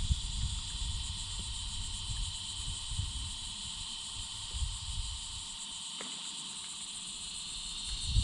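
Steady high-pitched chorus of insects, with a low rumble underneath that drops away about five and a half seconds in; a faint tick near six seconds.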